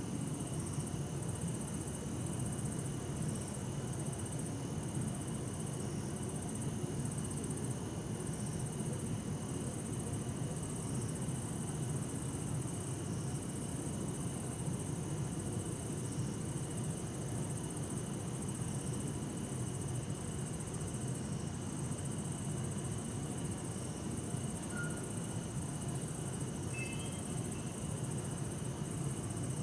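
Bell crickets (suzumushi) and other crickets singing steadily in high, continuous trills, over a low, steady hum of distant city traffic.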